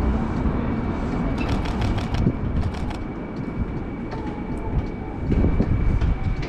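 Canon 5D Mark IV's shutter firing a rapid burst of clicks about a second and a half in, with a few more clicks just after, over a steady low rumble.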